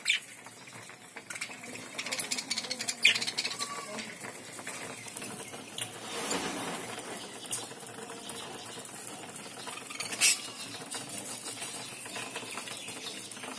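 A flock of budgerigars chirping and chattering, mixed with many small clicks and taps and a few louder sharp clicks.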